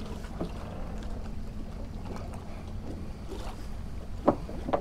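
Steady wind rumble on the microphone with a few faint knocks, and a brief louder sound near the end.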